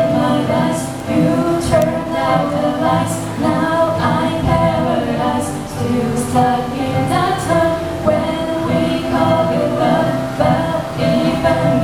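Girls singing a pop song over instrumental accompaniment.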